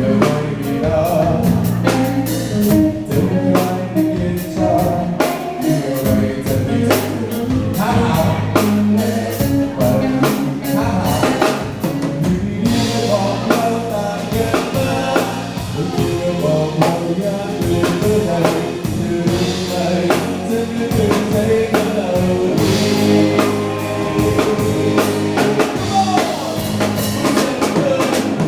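Live pop band playing a song: drum kit keeping a steady beat under bass, guitar and a singing voice.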